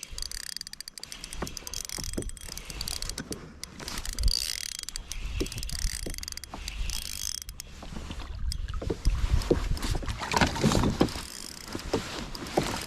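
Fishing reel being cranked to bring in a hooked fish, with a run of small mechanical clicks, over wind buffeting the microphone.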